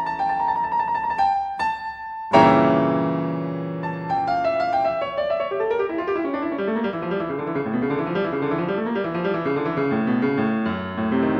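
Solo piano playing rapid Baroque keyboard figuration: a quick figure, then a loud chord about two seconds in that rings on, followed by fast arpeggios sweeping up and down.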